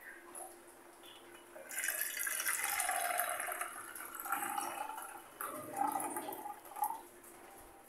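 Arbi leaf rolls frying in hot mustard oil in a kadhai: the oil sizzles and crackles, swelling up about two seconds in and then going on unevenly, as a metal spatula turns the pieces.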